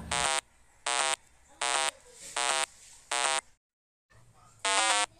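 Short, harsh electronic buzzer beeps repeating about once every three-quarters of a second, each a stack of stepped tones lasting a third of a second. The sound cuts out completely for about half a second a little past the middle, then the beeps start again.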